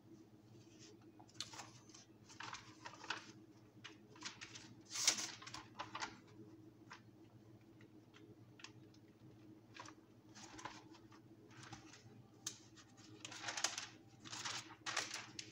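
Thin Bible pages being leafed through by hand: a run of brief papery rustles and flicks, the loudest about five seconds in.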